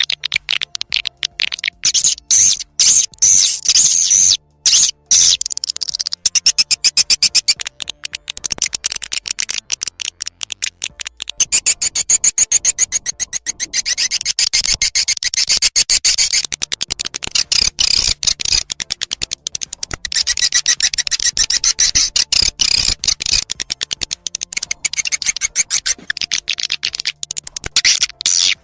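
Swiftlet call lure track: many swiftlets chattering in fast, high-pitched twitters and clicks, packed densely together with a few short breaks.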